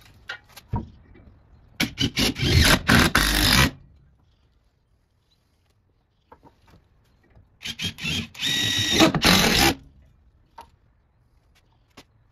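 Cordless power driver sinking long HeadLOK structural screws through a steel pull-up bar bracket into 2x4 wood blocking. It runs twice, about two seconds in and again about eight seconds in, each time a few short trigger taps followed by a sustained run with a steady whine.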